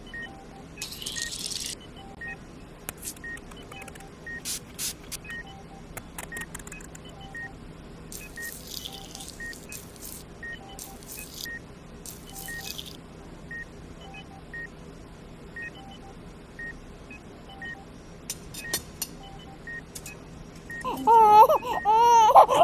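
Regular short electronic beeps at two alternating pitches, a little over one a second, like a hospital heart monitor, over faint clicks and a few brief hissy rustles. Near the end a loud, wavering, wailing cry starts and becomes the loudest sound.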